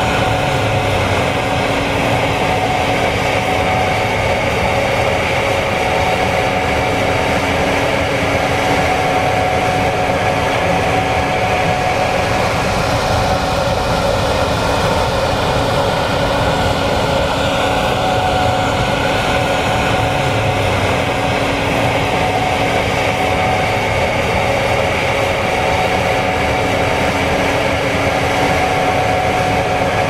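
Gleaner S96 combine harvester running while it harvests soybeans: a steady engine and threshing drone with a high whine on top.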